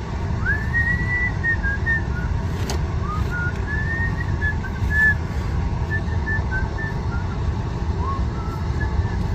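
A person whistling a slow tune, held notes with slides between them, over a steady low rumble, with a single sharp click a little under three seconds in.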